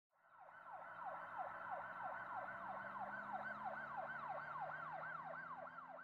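A siren in a fast, repeating falling sweep, about three sweeps a second, over a steady high tone; it fades in at the start.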